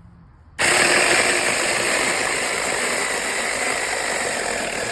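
Sofrose cordless brushless mini chainsaw starting up about half a second in and running steadily at full speed, its chain cutting into a branch.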